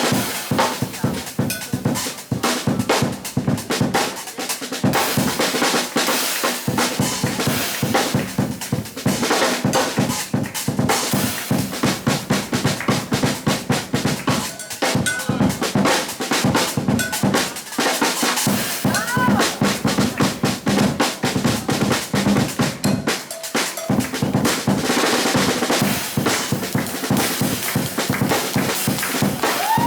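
Jazz drum kit played at length with rapid strikes on snare, bass drum and cymbals, with rimshots and rolls, as in a drum solo.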